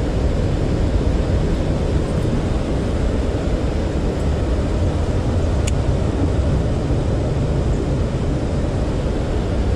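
Steady low rumble of wind buffeting the camera microphone, with an even rushing noise behind it. There is a faint click about six seconds in.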